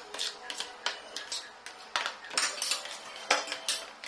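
Metal kitchen knife and spoon tapping and scraping against the bottom of a plastic tub while cutting and scooping set coffee jelly into cubes: a string of sharp, irregular clicks.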